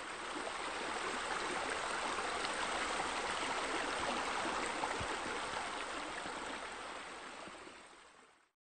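Steady rush of flowing, splashing water, like a pool water feature or stream. It fades out over the last couple of seconds and stops just before the end.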